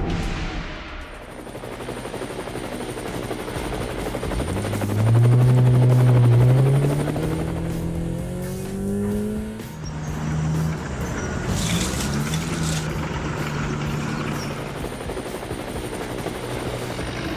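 Vehicle engine sound effect revving up, rising in pitch about five seconds in and loudest soon after, then running on at a steadier pitch.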